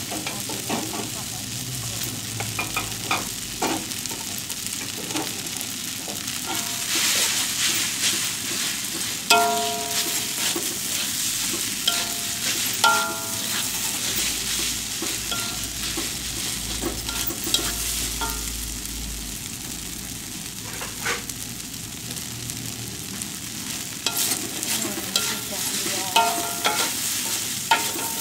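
Fried rice sizzling in a hot wok while a metal utensil stirs it and scrapes against the pan, with a steady hiss and repeated scrapes. Now and then there is a brief metallic ring.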